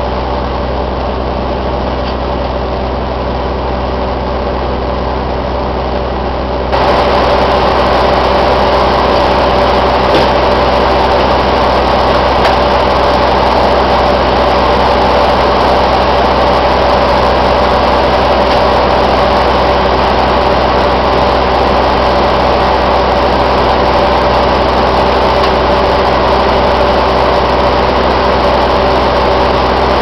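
Sawmill's power engine running steadily with a constant drone. About seven seconds in it gets louder and brighter, then holds steady.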